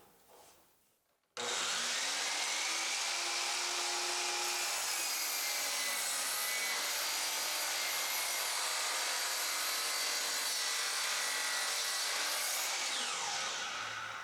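Electric power saw switched on and cutting wood for about eleven seconds, starting abruptly, then winding down near the end.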